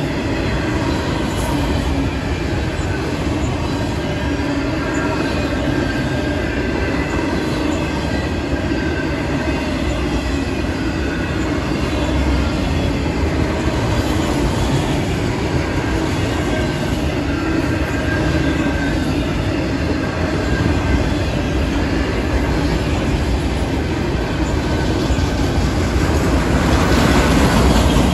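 Freight train of autorack cars rolling past close by: a steady rumble of steel wheels on rail, with thin high wheel squeals over it, getting a little louder near the end.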